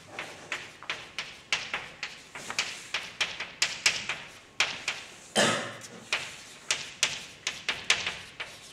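Chalk writing on a blackboard: a quick, uneven run of sharp taps and short scrapes, about three strokes a second, with one longer scrape a little past halfway.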